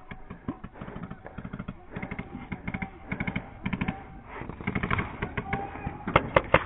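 Paintball markers firing in quick strings of sharp pops, with the loudest, closest string about six seconds in at roughly six shots a second.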